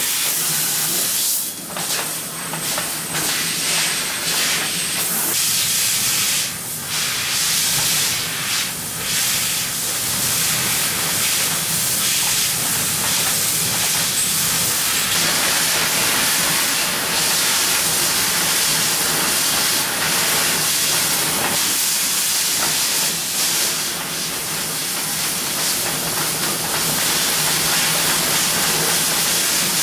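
Mazak Optiplex 3015 fiber laser cutting 0.8 mm stainless steel with nitrogen assist gas: a loud, steady hiss of the gas jet at the cutting head, over a faint low hum. The hiss drops away briefly several times in the first ten seconds and once more later.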